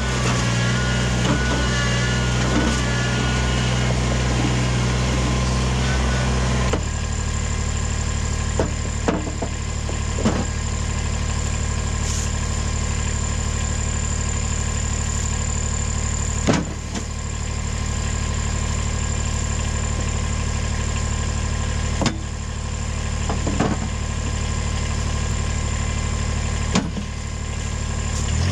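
Kubota BX23S's three-cylinder diesel engine idling steadily, its note changing about seven seconds in. Several sharp clunks of rocks being set into the steel loader bucket.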